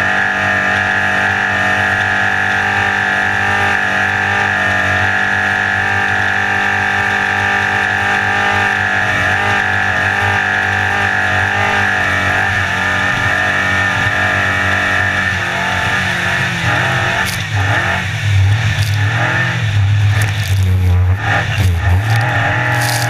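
Small open race boat's engine running at high, steady revs. About two-thirds of the way through, the engine pitch starts to waver and the hull slams through waves, with sharp thumps and splashing spray.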